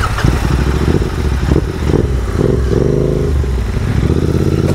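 Royal Enfield 650 parallel-twin motorcycle engine running under way, its pitch rising and dipping about halfway through, then holding steady.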